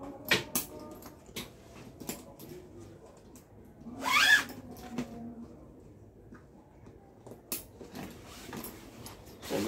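A backpack's shoulder strap being handled and clipped on: scattered clicks and light knocks of the strap's buckles and hooks against the bag. About four seconds in comes a short, loud squeal that rises in pitch, the loudest sound.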